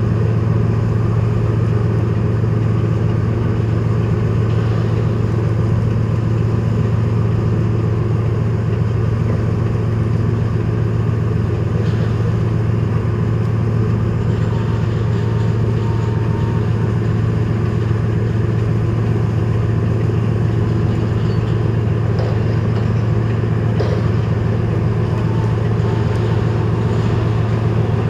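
Steady low drone of a running engine, even throughout with no rise or fall.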